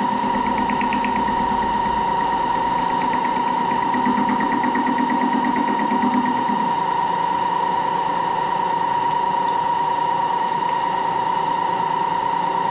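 Moore jig borer's spindle running at speed with a steady whine, having just spun up, with a light rhythmic rattle about a second in and again from about 3 to 6 seconds as the tool cuts a radius in the workpiece.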